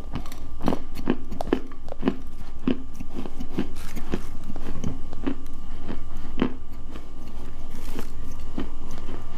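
Close-up crunching of dry edible clay (Sunny clay) being bitten and chewed, with sharp crunches about twice a second over a steady low hum.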